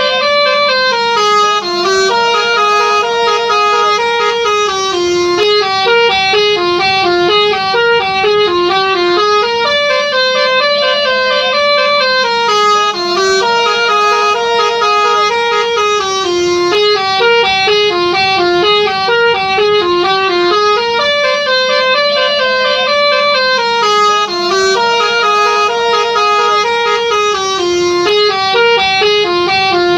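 Multi-tone 'telolet' bus horn playing a melody, its notes stepping abruptly from pitch to pitch in a pattern that repeats about every five seconds.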